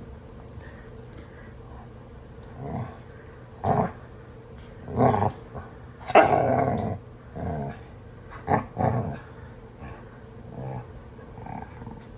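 Two dogs growling at each other in rough play-fighting, in about eight short irregular bursts, the longest and loudest about six seconds in. It is play, not a real fight.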